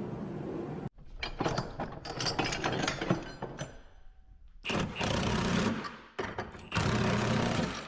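Auto-body shop work: a run of quick metallic knocks and clicks, then a power tool running in two bursts of about a second each.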